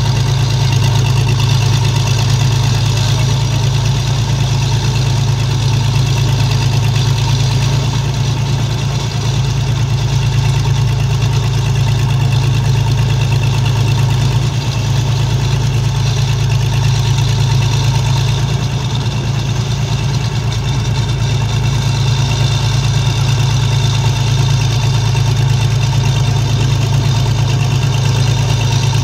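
Engines of a mud-suction dredge boat and a tracked excavator running steadily at an even speed, with no revving.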